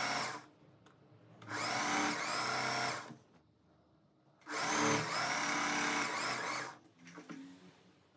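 Singer electric sewing machine stitching a seam in three bursts, stopping in between: a short run ending about half a second in, another of about a second and a half, and a longer run of about two seconds.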